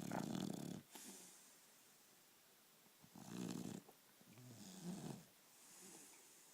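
Shar-Pei dog snoring in her sleep: a snore at the start, then two more, one a little over three seconds in and a longer one around five seconds in, with quiet breathing between and a soft hissing breath near the end.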